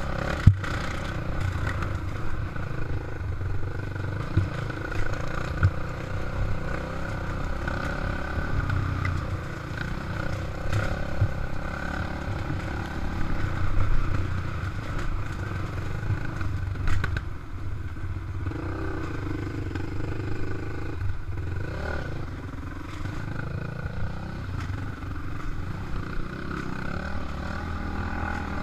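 Dirt bike engine running at trail speed, its pitch rising and falling with the throttle. Scattered sharp knocks and rattles come from the bike over the rough dirt trail.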